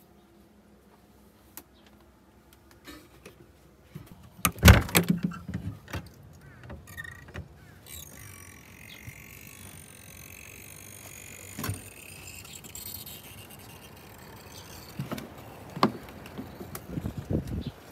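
Knocks, clunks and rattles of a motorhome's entry door and interior fittings being handled, loudest in a burst of clunks about four and a half seconds in. From about eight seconds a faint steady hiss sits underneath.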